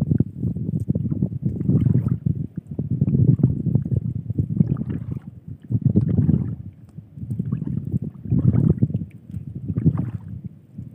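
Water splashing and sloshing in repeated bursts, about one every second and a half, as a fishnet full of tilapia is worked in the water, the fish thrashing inside it.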